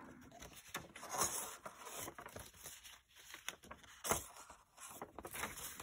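Folded sheets of paper rustling and crinkling as they are handled, folded up and opened out, with a few sharper crackles, the loudest about four seconds in.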